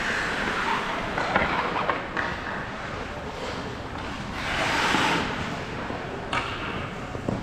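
Ice hockey skate blades scraping and hissing on rink ice, with a louder, longer spray of hiss about five seconds in, and a few short sharp clacks.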